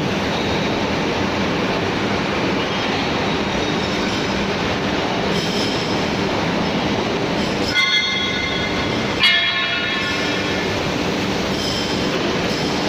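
Steady loud din of machine-shop machinery, with two brief high metallic rings about eight and nine seconds in.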